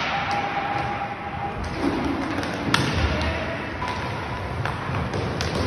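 Inline hockey play in a large sports hall: several sharp clacks of sticks striking the plastic puck and the floor over a steady din of skating and play, echoing in the hall.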